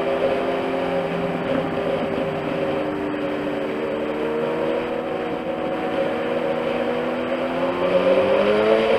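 Inline-four motorcycle engine running at a steady speed in traffic, over wind and road noise; near the end the revs climb.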